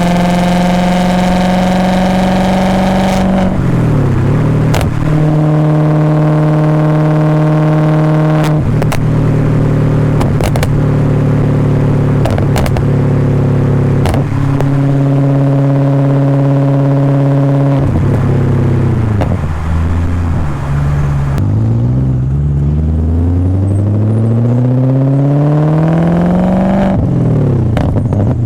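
BMW E39 540i's 4.4-litre V8 through a straight-pipe exhaust and Summit Racing muffler, accelerating hard through the gears. The engine note climbs and drops abruptly at each upshift, three times in the first half. It falls off off-throttle for a few seconds, then climbs strongly again with another shift near the end.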